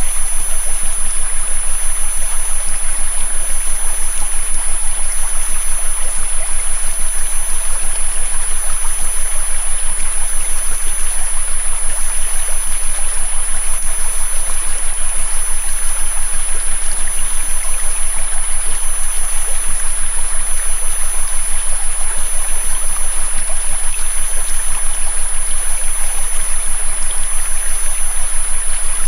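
River water rushing steadily, with a steady high-pitched synthesized tone and a fainter lower tone running over it.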